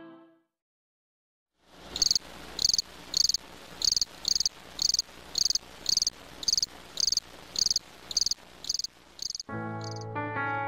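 A cricket chirping steadily, about two short high chirps a second, over a faint hiss. Keyboard music comes in near the end.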